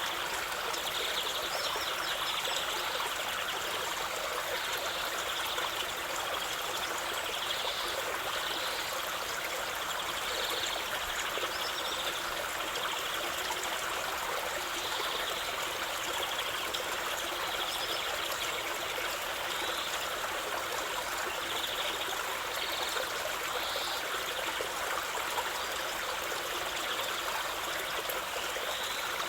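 Running water of a stream flowing steadily, with small brighter splashes here and there.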